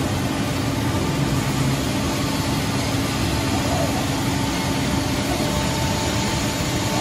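PTP-3013 CNC point-to-point woodworking machining centre and its dust extraction running steadily while machining a wood panel: a constant machine hum with a low steady tone and a fainter higher whine over a broad noise.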